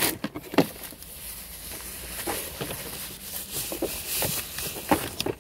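Paper and plastic packaging rustling and crinkling as a hair-clipper box is unpacked by hand, with a few sharper handling knocks.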